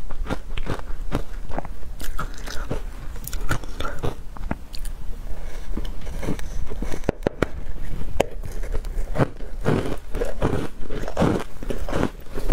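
Ice coated in matcha powder being bitten and chewed: irregular crisp crunches and cracks, with a denser, louder run of crunching near the end.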